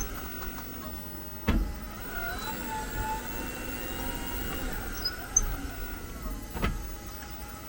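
Squeaking from a 2022 Jeep 4xe that comes when reversing and braking or shifting into Park: faint wavering squeaks, with two sharp knocks, one about a second and a half in and one near the end. A dealer's brake cleaning has not cured the noise.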